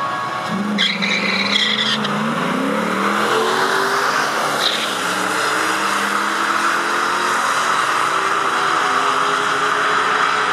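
Ford Mustang launching from the drag-strip start line with a brief tire squeal. The engine revs up, climbing in pitch through each gear with drops at the shifts as it pulls away down the track.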